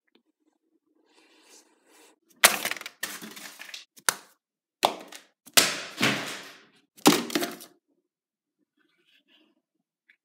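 A run of about seven sharp cracks, each fading out quickly.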